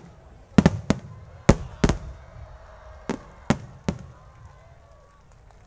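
Aerial firework shells bursting in a string of about eight sharp bangs, some in quick pairs, over the first four seconds. The bangs then stop, leaving only a faint background.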